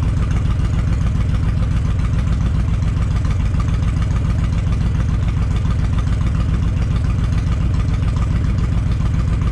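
Honda VTX1300's V-twin engine idling steadily, with an even, rapid low beat.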